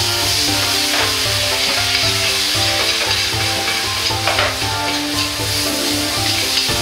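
Soy sauce sizzling loudly as it hits hot butter and grated garlic in a wok, with a ladle stirring and scraping against the wok a couple of times.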